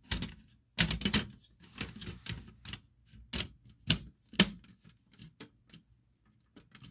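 Handling noise: a run of irregular clicks and knocks of hard plastic being moved and set down. The loudest come about a second in and again near four seconds, then fade to a few light taps.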